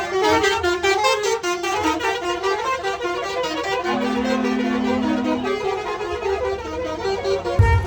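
Telolet basuri melody air horn on a tour bus playing a quick tune of stepped notes, with one longer low note held for over a second about four seconds in. It cuts off abruptly near the end.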